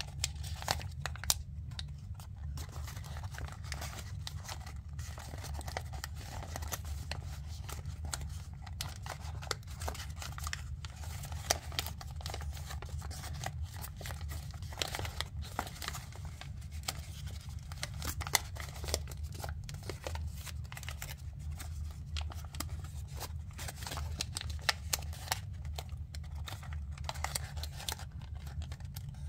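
Paper crinkling and rustling as fingers fold and crease a many-layered origami model, with frequent small sharp crackles and a few louder snaps. A steady low hum runs underneath.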